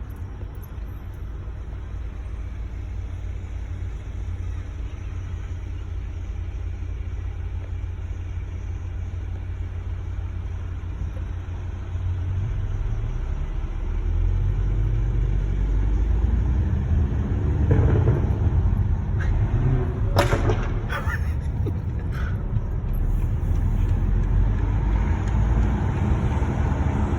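BMW F90 M5's twin-turbo V8 running with a steady low exhaust note, growing louder from about twelve seconds in with a rising rev. Several loud, sharp exhaust crackles and pops come around twenty seconds in.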